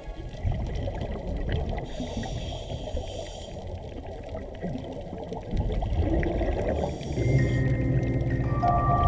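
Underwater sound of scuba divers' exhaled bubbles gurgling and rumbling, muffled by the camera housing. About seven seconds in, a steady low drone with several held tones comes in and the sound grows louder.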